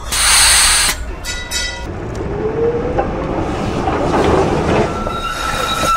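Electric tram: a loud hiss of air in the first second, a few short ringing strokes, then running noise with a whine rising in pitch as it moves off, and a steady high wheel squeal near the end.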